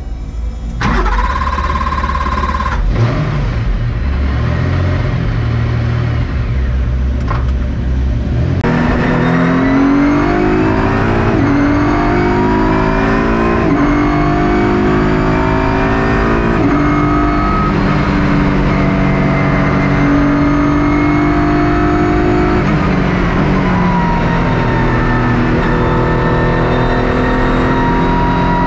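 Ligier JS P4 prototype's V6 engine heard from inside the cockpit: low, uneven revs for the first several seconds, then from about nine seconds in it pulls hard through the gears, its pitch climbing and dropping back at each upshift. Near the two-thirds point the revs fall away briefly before it accelerates again.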